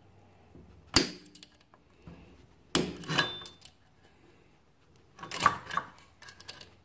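Small metal clicks and scrapes as a screwdriver pries at the snap ring in a 4L60E transmission servo piston: one sharp click about a second in, then two short clusters of clinking around three and five seconds in.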